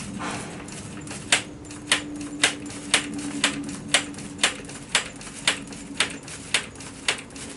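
Sharp clicks about twice a second from a Suzuki TS185ER's throttle as it is worked open and snapped shut by hand.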